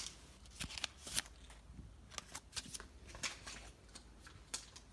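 Light handling noise of a Kinder Surprise toy's paper instruction sheet and its small plastic parts: scattered short clicks and rustles, with a sharper click at the start and another about a second in.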